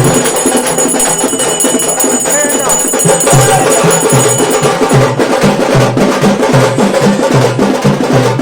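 Music with drums and percussion, with a steady beat about twice a second through the second half.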